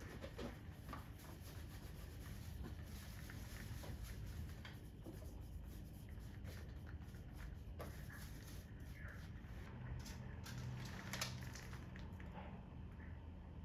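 Faint rubbing and scraping with scattered light clicks and knocks of materials and tools being handled during installation work, over a steady low hum.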